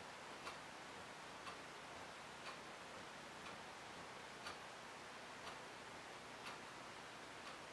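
Faint, steady ticking, one tick about every second, over quiet room tone.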